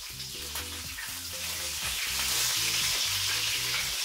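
Fish patties frying in hot oil in a pan, sizzling steadily; the sizzle grows louder about halfway through as a patty is turned over.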